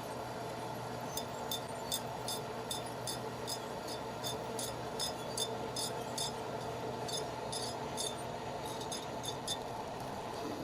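Metal lathe running with a steady hum, with a string of light, sharp ticks, roughly two or three a second, from about a second in until near the end.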